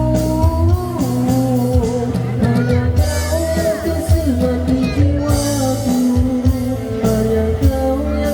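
Malay pop ballad played by a band: held sung or lead notes over guitar, bass and drums.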